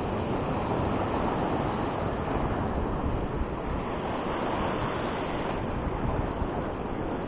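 Surf washing and breaking over a rocky reef shore, with wind buffeting the microphone; a steady, even rush throughout.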